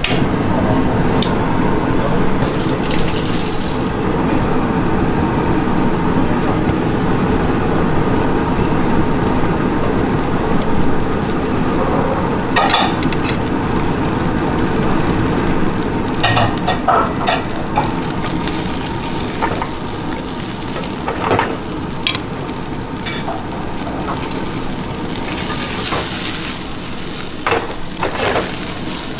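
Diced pork searing in a cast-iron frying pan over a gas burner: steady sizzling with the burner's low rumble beneath. A scattering of short clinks and knocks comes in the second half.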